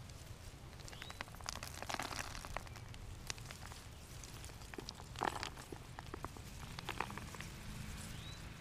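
A daylily clump being pulled apart by hand: rustling leaves and crackling roots and soil in scattered bursts, loudest about two seconds in and again around five seconds.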